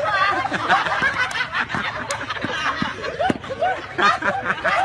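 People laughing and chuckling, with several voices overlapping.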